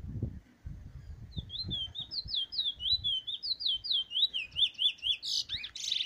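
Caged bullfinch singing a fast run of rising-and-falling whistled notes, about four a second, that ends in a few louder, harsher notes: the song phrase its keeper calls a perfect roll swing. Low thumps come before the song, in the first second or so.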